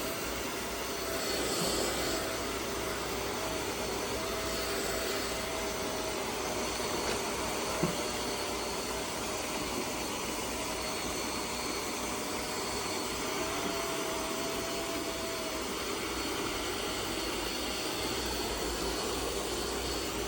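eufy X10 Pro Omni robot vacuum running: a steady suction hiss with a faint, slightly wavering motor whine, and a single click about eight seconds in.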